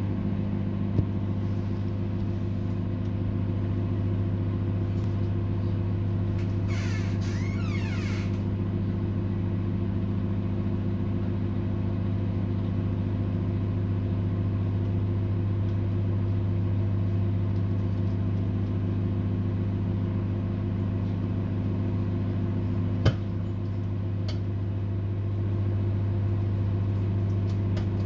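Microwave oven running with popcorn inside: a steady low hum, broken by two single sharp pops, one about a second in and one near 23 seconds, the early kernels starting to pop. A brief high warbling sound comes about seven seconds in.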